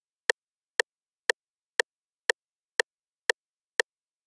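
Cowbell struck alone in a steady beat, eight short, dry hits about two a second.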